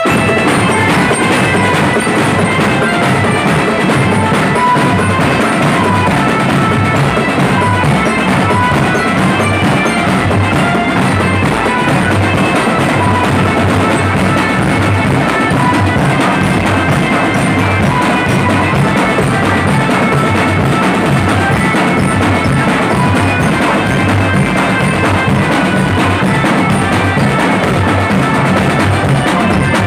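Indonesian marching drum band playing live: bass drums and snare and tenor drums pound out a dense, steady beat, with a melody from tuned instruments on top.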